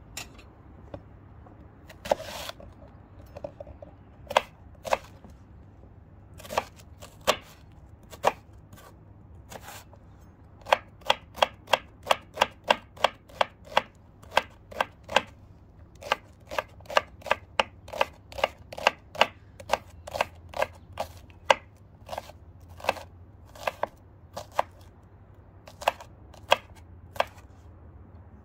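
Chef's knife dicing a shallot on a wooden cutting board: sharp knocks of the blade on the wood, a few spaced strokes at first, then a quick run of about four a second from around ten seconds in, then steady, less even chopping.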